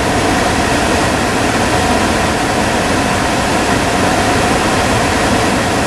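Chevy Impala's AC blower pushing air out of the centre dash vent in a loud, steady rush, with the engine held at raised revs.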